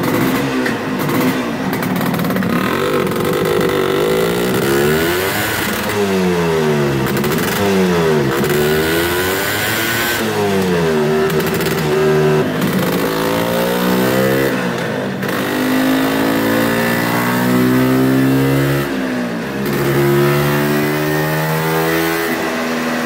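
Two-stroke Vespa scooter engine with a 244 cc Quattrini M244 kit and FACO box exhaust, run on a dyno: revved up and down several times, then pulled up through longer rising runs under load. The exhaust is loud: not a quiet one.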